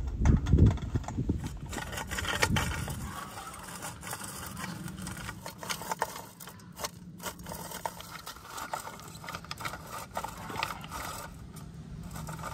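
Hand-cranked rotary drum grater being turned, walnuts rasping against the metal drum in a run of quick scrapes and clicks, with dull knocks near the start.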